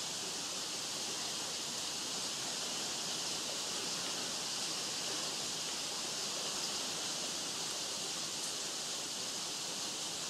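A steady, even, high hiss with no distinct events.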